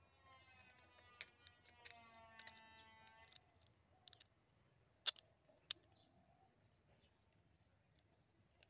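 Scattered small clicks and taps from a homemade wooden pistol with a metal pipe barrel being loaded by hand, the two sharpest clicks about five seconds in. Birds call in the background.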